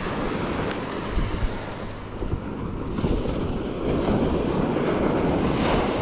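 Small ocean waves breaking gently and washing up the sand, with wind rumbling on the microphone. The surf swells louder over the last couple of seconds.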